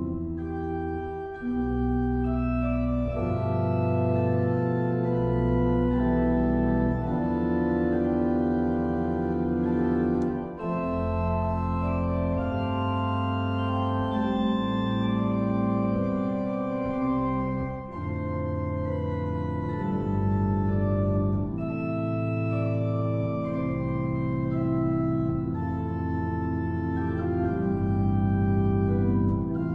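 Organ music: slow, held chords over long, deep bass notes, the harmony changing every second or two.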